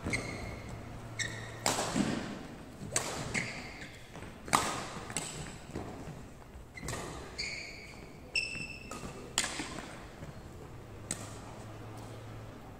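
Badminton rally: rackets striking the shuttlecock about eight times, a second or so apart, each hit echoing in the hall, with short squeaks from shoes on the wooden court between shots.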